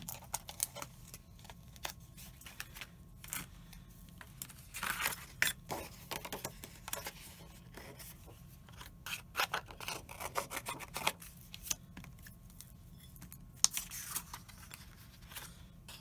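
Papercraft handling on a cutting mat: a thin metal cutting die and card stock being picked up, moved and set down, giving scattered clicks, taps and short paper rustles, with a pointed tool scratching against the card near the end.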